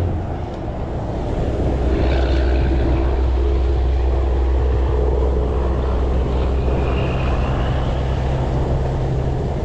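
A steady, low-pitched engine drone that dips briefly about half a second in and then holds even.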